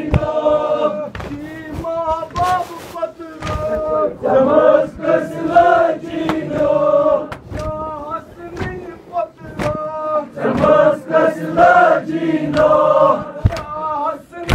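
Men chanting a Kashmiri marsiya, a sung mourning elegy, in chorus. Several voices hold long, wavering sung lines.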